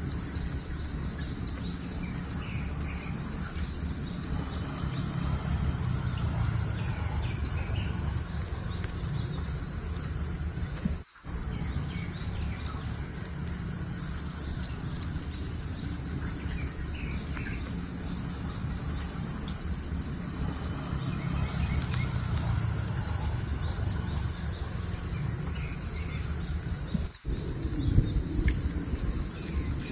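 Steady high-pitched chorus of insects, with faint bird chirps over a low rumble of wind. The whole ambience cuts out briefly twice, about a third of the way in and near the end.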